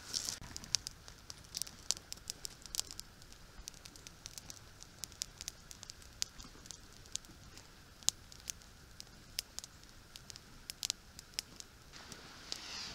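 Small kindling fire of dry twigs and pine needles crackling, with frequent sharp, irregular pops. A soft rushing noise swells near the end.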